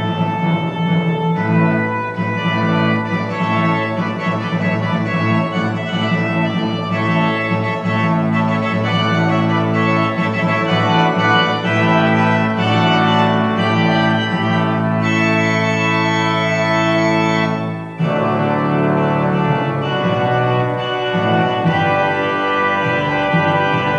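Organ music: slow, held chords, with a short dip and a change to a new chord about three-quarters of the way through.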